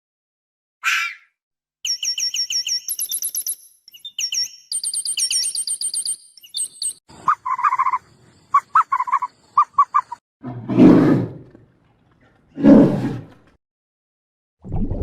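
A sequence of different animal calls. First a short call, then rapid, high, repeated chirping trills, then a run of shorter mid-pitched calls. Near the end come two loud, low, roar-like calls about a second each, the loudest sounds here.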